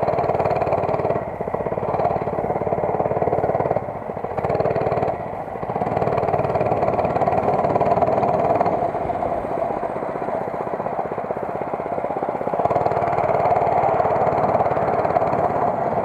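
Small 5 hp single-cylinder minibike engine running under way, its speed and level dipping briefly a few times in the first five seconds as the throttle is eased and opened, then holding steadier.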